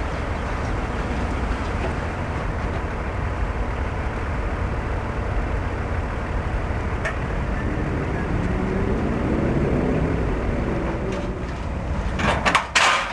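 Ford Atlas concept pickup's engine running slowly as the truck creeps up steel loading ramps into a car transporter, a low steady rumble whose pitch rises and falls briefly past the middle. Near the end come a few loud sharp knocks.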